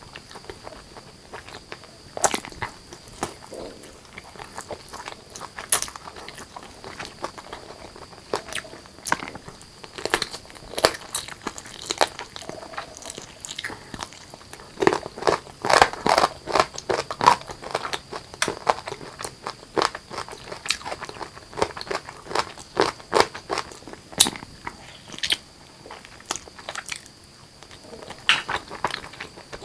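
Close-miked eating: chewing and biting into spicy chicken curry with rice, with many sharp crunchy clicks, thickest about halfway through.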